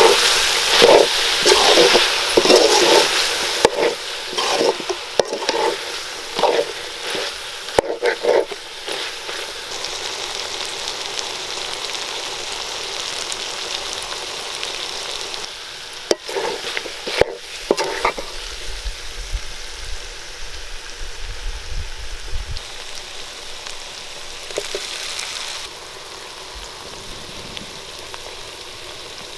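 Chicken masala sizzling in a large metal pot, with a metal ladle scraping and stirring through it in a run of strokes over the first several seconds and again briefly about two-thirds through. Between the strokes the sizzle goes on steadily.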